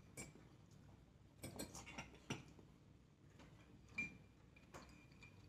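Faint, scattered clinks of metal spoons against ceramic soup bowls during eating, about half a dozen light taps with quiet between them; one about four seconds in rings briefly.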